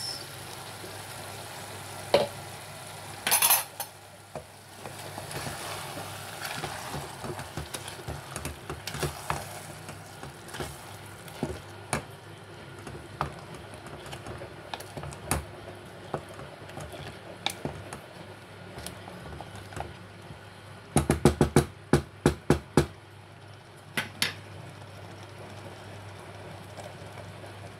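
Wooden spatula stirring thick tomato and chicken curry in a pressure cooker pot, with scattered scrapes and knocks against the pot. Near the end comes a quick run of about eight sharp knocks against the pot.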